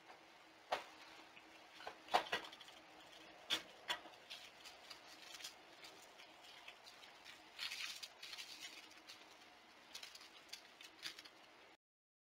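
Scattered clicks, knocks and short rustles of movement inside a wire-mesh animal enclosure, over a faint steady hum. The sound cuts out briefly near the end.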